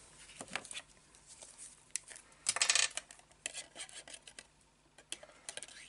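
Paper rustling and small plastic clicks as a glue tape roller is uncapped and run along folded patterned paper, with one short burst of scratchy noise about two and a half seconds in.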